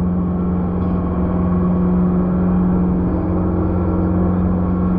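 Motorboat engine running steadily under way, a constant loud drone with a held low hum.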